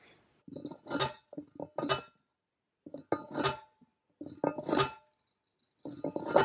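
Hand-held metal post driver slammed down onto a fence post, about five ringing metal clangs roughly a second or so apart.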